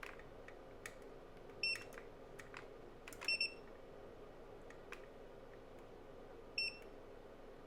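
Digital clamp meter beeping as its buttons are pressed: short high beeps about one and a half seconds in, a quick double beep about three seconds in, and another near the end. Soft clicks from the buttons and the rotary dial fall between them.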